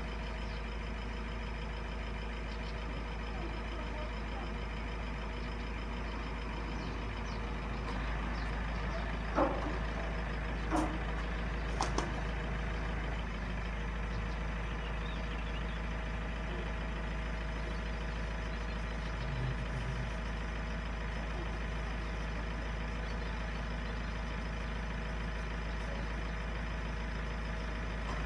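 Steady engine-like hum made of many steady tones, with a few short sharp knocks between about nine and twelve seconds in.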